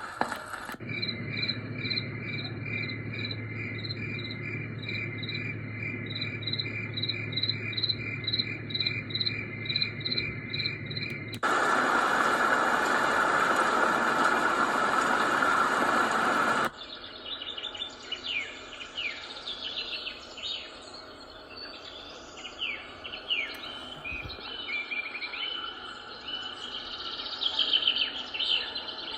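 Portable sound machine playing its built-in nature tracks one after another, each cutting in abruptly. First comes recorded cricket chirping, about two chirps a second over a low hum. About eleven seconds in it switches to roughly five seconds of loud, steady rushing noise, then to recorded birdsong with scattered short chirps.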